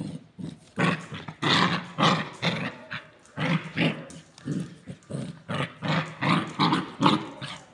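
A puppy growling angrily in short, rough bursts, about three a second.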